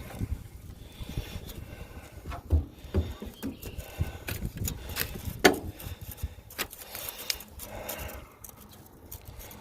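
Irregular metal clinks and knocks from working the shims and blade mounting loose on a Woods rotary mower's blade spindle. The sharpest knock comes about five and a half seconds in.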